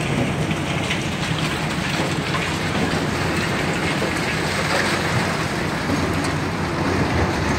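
Several tracked hydraulic excavators running their diesel engines on a demolition site, with steady clatter and scraping of concrete rubble and scrap being worked by the buckets.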